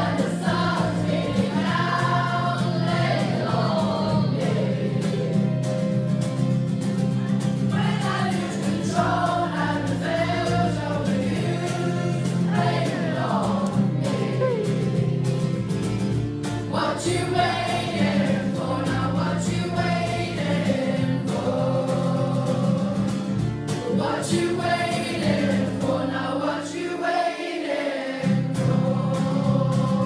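A group of young voices singing a song together in unison over instrumental accompaniment that includes acoustic guitar. Near the end the low accompaniment drops out briefly, then comes back in.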